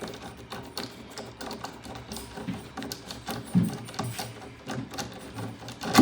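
A flathead screwdriver working screws out of a door lock: a run of small, irregular metal clicks and scrapes, with a sharper click at the end.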